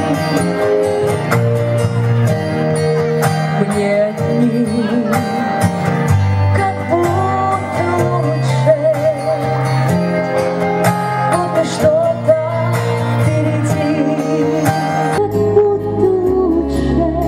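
A woman singing a slow song into a microphone with a wavering vibrato, over an instrumental accompaniment.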